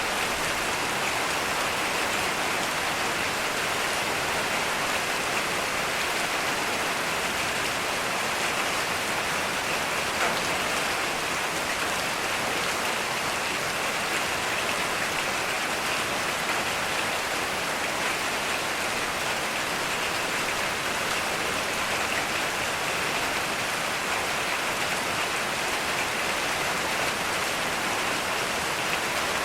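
Heavy rain falling steadily, an even hiss of many drops on surfaces, with one sharper tap about ten seconds in.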